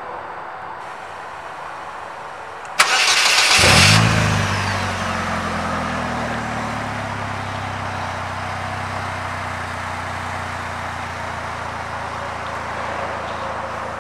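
2015 Polaris Slingshot SL's 2.4-litre four-cylinder engine starting: a brief crank about three seconds in that catches with a short rev flare, then settles into a steady idle.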